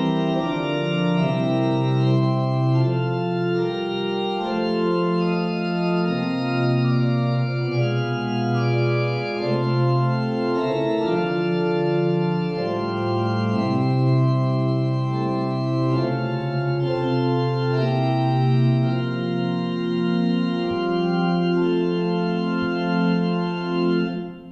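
Church organ playing a postlude after the service: sustained full chords, the notes moving every second or so. It cuts off sharply at the very end.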